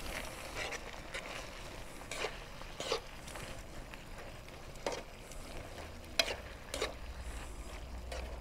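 Metal tongs tossing spaghetti in a frying pan of simmering marinara sauce, with sharp clicks and scrapes of the tongs against the pan every second or so over a low sizzle.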